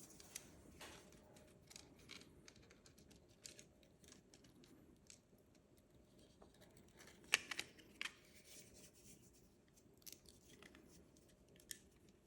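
Faint clicks and light scraping of small parts being handled: a small nut being threaded onto an MMCX socket in a 3D-printed plastic headphone earcup. The sharpest clicks come about seven and eight seconds in.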